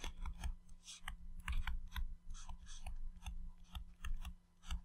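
Stylus tapping and scraping on a tablet's touchscreen during handwriting: an irregular run of short clicks and scratches.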